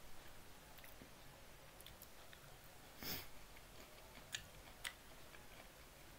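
Quiet chewing of food with faint mouth clicks. About three seconds in comes a short breathy rush, the loudest sound, and a second later two sharp clicks about half a second apart.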